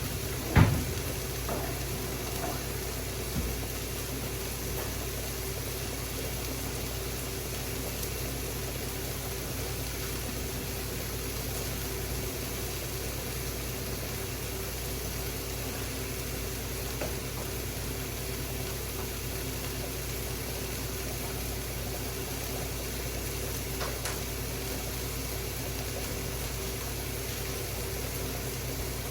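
Steady mechanical hum with a faint held tone throughout, and a sharp knock just after the start with a smaller one about three seconds in.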